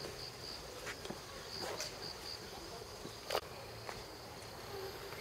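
Insects singing in the trees: a steady high-pitched drone with runs of pulsed chirps, about four a second. A sharp click cuts across it about two-thirds of the way in.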